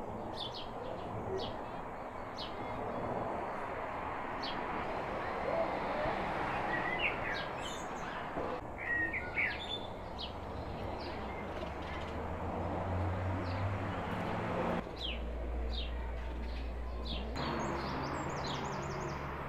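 Small birds chirping repeatedly, short high notes with a few warbled phrases, over a steady background din.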